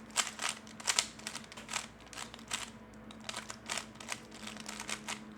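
A series of irregular sharp clicks and clacks, roughly two a second, over a faint steady low hum.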